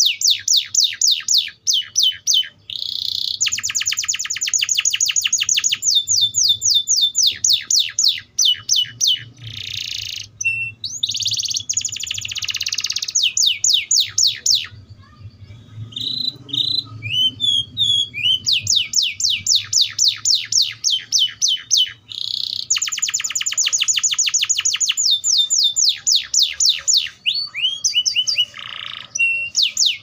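Atlantic canary (wild-type Serinus canaria) singing: fast rolling trills of repeated high notes, in phrases a few seconds long. A short lull about halfway through holds a few softer chirps.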